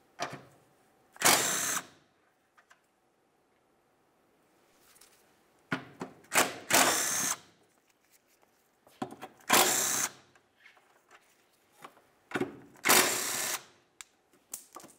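A cordless power tool spins a 13mm socket in four short runs of under a second each, backing the four nuts off a steel exhaust cross member bracket. Small clicks and taps come between the runs.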